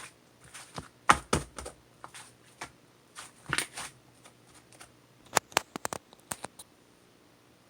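Irregular sharp clicks and taps in scattered groups, with a quick run of clicks about five and a half seconds in, then stopping.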